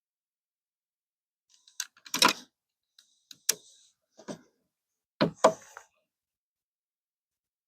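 A handful of short, sharp clicks and knocks, some in quick pairs, with silence between them.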